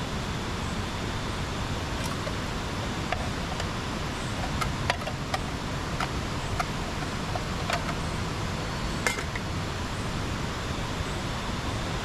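Steady rushing background noise, with a string of small clicks and clinks between about four and nine seconds in as small containers are handled at a bamboo camp table.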